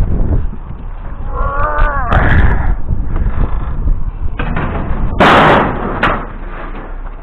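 A loud slam about five seconds in, with a smaller knock just after, over a steady low rumble. A brief squeal that wavers in pitch comes a little over a second in.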